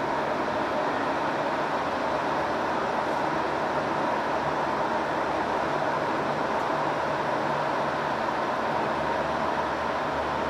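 Hino Profia truck driving at steady speed on an expressway, heard from inside the cab: a constant rush of road and wind noise over a low, steady engine hum.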